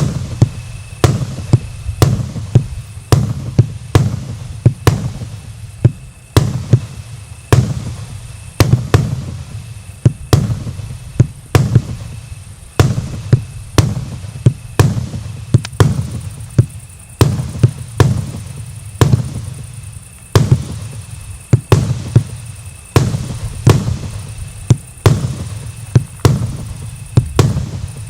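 Premium firework battery (JF VIP9 'Ofitserskiy' Joker cake) firing shot after shot: a steady run of sharp bangs with a deep boom, about one or two a second.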